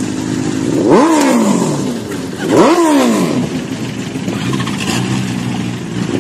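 Superbike engines idling at a standstill, one blipped twice in quick revs that climb and fall back, about a second in and again near the three-second mark, then settling back to a steady idle.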